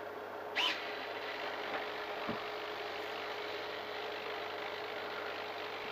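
Small RC servos powered from a servo tester, humming steadily, with a short rising whine about half a second in as a servo moves to its new position.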